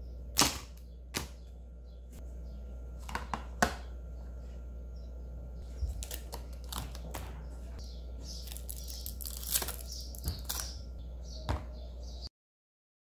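Scattered light clicks and knocks of food and tongs being set into hard plastic lunch-box containers, over a faint steady low hum. The sound drops out completely about twelve seconds in.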